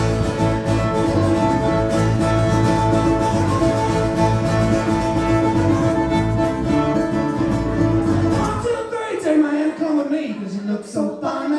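Live band music: fiddle, acoustic guitar and bass guitar playing an instrumental passage with a steady bass line. About nine seconds in the bass drops out, leaving a sliding melodic line over the guitar.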